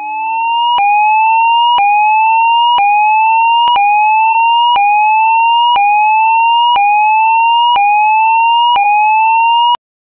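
Electronic fire alarm sounder giving a loud sweeping tone that rises in pitch and snaps back about once a second, about ten sweeps in all. It fades in at the start and cuts off just before the end.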